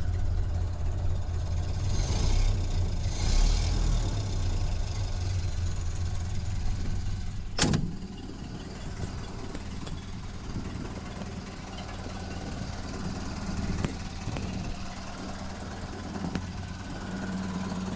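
1930 Ford Model A's four-cylinder flathead engine idling steadily just after starting. About eight seconds in the car door's latch clicks open, and the idle is quieter after that.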